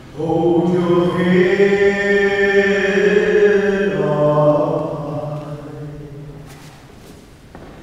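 A man singing a slow, sustained phrase through a microphone, echoing in a large church. The phrase steps down in pitch about four seconds in and fades away over the next couple of seconds.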